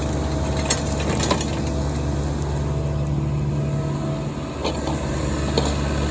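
Cat 305 mini excavator's diesel engine running steadily, with a few light clanks scattered through.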